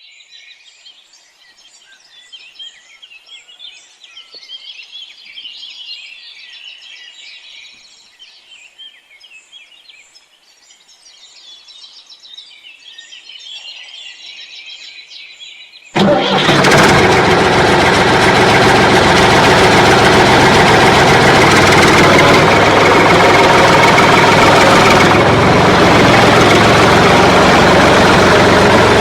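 Birds chirping for about the first half. Then, about halfway through, a loud engine sound starts abruptly and runs steadily at idle.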